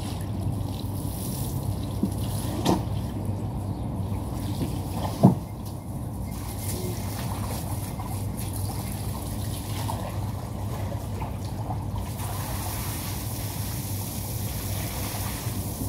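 Water running from a garden hose and splashing onto a carpet and stone paving, steady throughout, with a steady low hum beneath and a few short knocks, the loudest about five seconds in.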